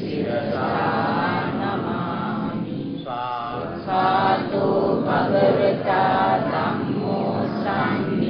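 A man's voice chanting Buddhist verses in a slow, melodic recitation on held notes, with a brief pause for breath about three seconds in.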